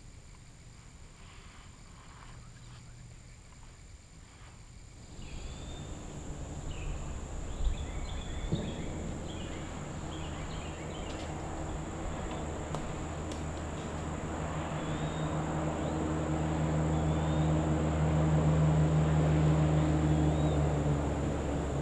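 Faint bird chirps, then from about five seconds in a distant engine hum that builds steadily and eases off near the end, with birds chirping over it and a single sharp knock early on.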